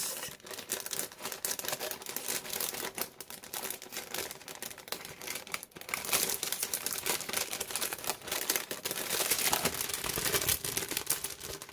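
Crinkling and rustling of craft-kit packaging being handled and opened, an irregular run of crackles and small rips.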